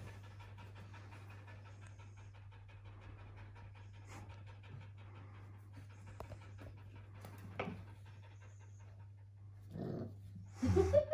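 Siberian husky panting rapidly and steadily, with a faint low hum underneath. Near the end, a few short, louder pitched cries break in.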